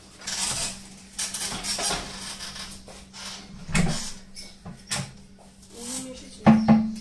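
Knocks, scrapes and rattles of a household ladder being set up and climbed to reach a storage loft, with several sharper bumps, the loudest near the end. A faint steady low hum runs underneath.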